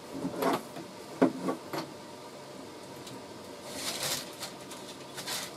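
A few light knocks and clicks, then brief rustling, as a person moves about and braces against the cabinets inside a motorhome.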